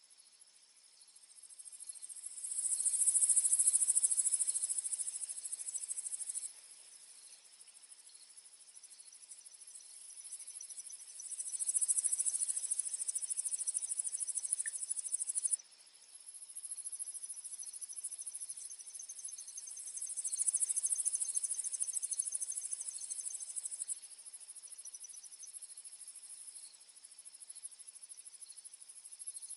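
A chorus of insects: a steady high trilling of crickets underneath, and a louder high buzz that swells and fades three or four times, each swell lasting a few seconds. The level jumps abruptly a couple of times.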